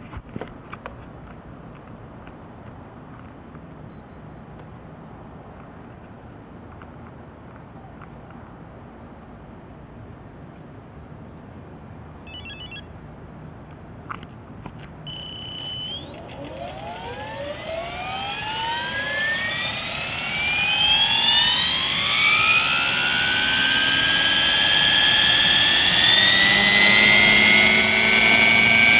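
Align T-Rex 600 RC helicopter spooling up. After a quiet stretch come a few short electronic beeps and a brief tone. Then the motor and rotor whine climbs steadily in pitch and loudness, levelling off near the end as the blades reach speed.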